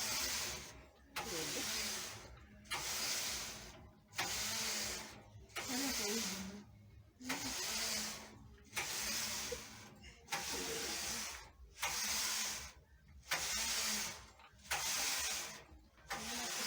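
Hand-operated sweater knitting machine, its carriage swished back and forth across the needle bed in even strokes, about one every second and a half.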